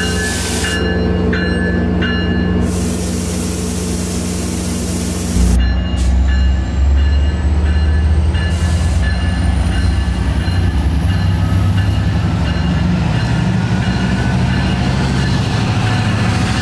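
Diesel locomotive engine idling close by with a steady hum; about five seconds in this gives way to a heavier low rumble as a Metrolink EMD F59PH diesel locomotive rolls in along the platform.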